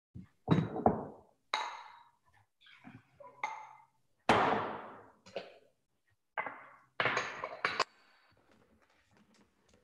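Kitchen containers and bowls being picked up and set down on a countertop: a string of about nine knocks and clinks, some with a short ring, the loudest about four seconds in.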